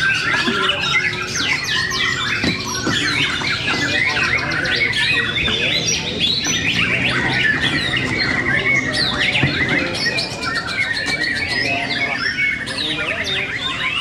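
Many caged songbirds singing at once, a dense unbroken tangle of rapid chirps, trills and whistles, over a low murmur of people.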